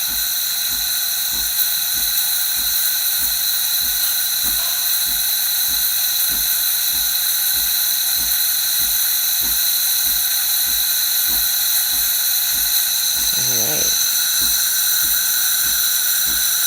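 Breville BES820XL espresso machine's steam wand hissing steadily, giving good steam, with a regular low ticking about three times a second underneath.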